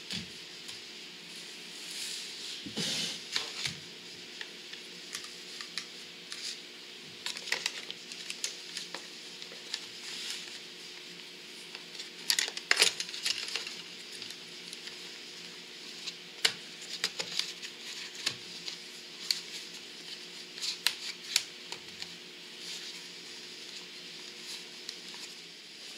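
Irregular plastic clicks, taps and rustles as an auto-darkening filter cartridge is handled and fitted into a welding helmet shell, over a faint steady hum.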